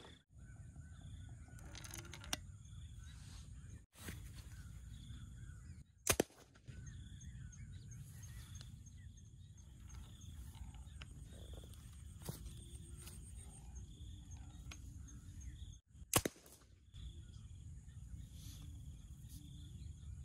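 Two sharp cracks about ten seconds apart as a homemade PVC-pipe launcher is fired, over a steady rumble of wind on the microphone.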